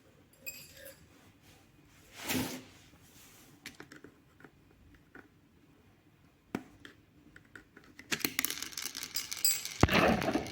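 Hands handling the packaging and parts of a new electric fan: scattered light clicks and a short rustle, then steady crackling and rustling from about eight seconds in, loudest near the end.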